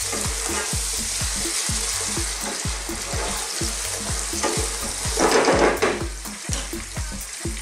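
Potatoes, red onion and garlic sizzling in hot olive oil in a saucepan while a wooden spatula stirs through them. There is a louder patch of stirring and sizzle about five seconds in.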